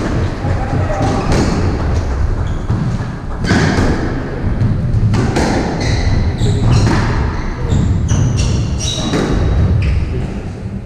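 Squash rally: repeated sharp strikes of the ball on rackets and walls, with short high squeaks of shoes on the wooden court floor.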